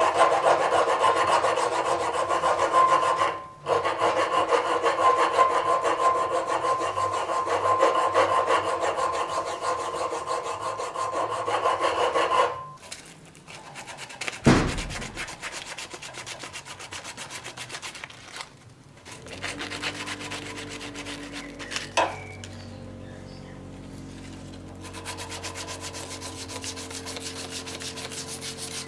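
Hand file rasping on a steel sword cross-guard clamped in a vise, in quick, even strokes for about twelve seconds. After a pause and a single thud, a quieter, lighter rubbing follows as the guard's small curled end is filed smooth.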